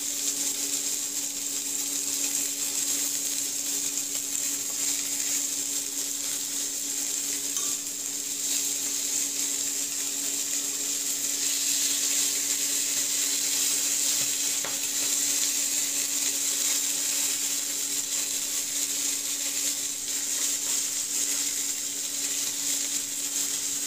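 Chicken pieces sizzling steadily as they fry in hot chicken fat in a stainless steel pan, with a steady low hum underneath.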